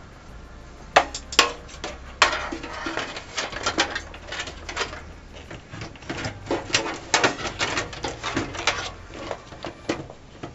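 Irregular clicks, knocks and rustling from computer hardware being handled: a drive and its cable being worked into a desktop PC case bay. The sharpest knocks come about a second in and around two seconds in.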